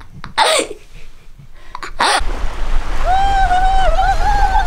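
A girl's short laughing shriek, then wind rumbling on the microphone and a high wavering 'ooo' tone that slides up and down.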